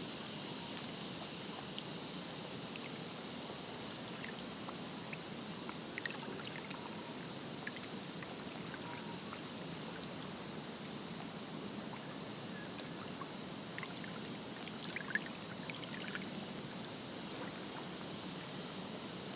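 Lake water lapping gently, a steady wash with a few small splashes about six seconds in and again around fifteen seconds in.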